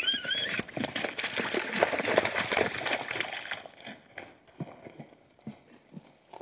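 Hartmann's mountain zebras bolting from a waterhole: a dense clatter of hoofbeats on hard ground for the first three and a half seconds, thinning to scattered steps after that. It opens with a brief high squeal.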